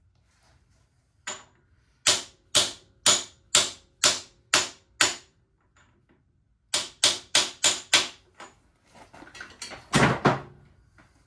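Hammer blows on a seized bolt of a Kawasaki ZX11 front fork, struck to shock it loose: a single blow, then a run of seven at about two a second, a short pause, and five quicker ones. Near the end come a rough scrape and one loud clatter.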